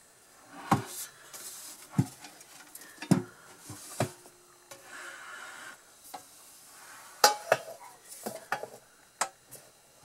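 Metal Knapp Monarch Redi-Baker toaster oven being handled and turned over, its body giving a dozen or so irregular knocks and clanks against a hard surface, with a scraping rub about halfway through. The loudest clank comes a little after seven seconds.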